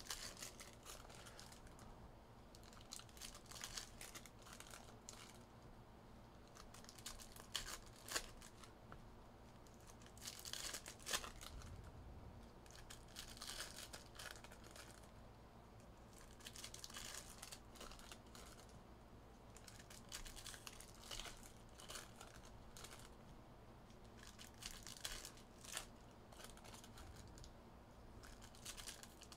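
Faint crinkling and tearing of plastic wrapping as a sealed trading-card box and its packs are opened, in scattered short bursts.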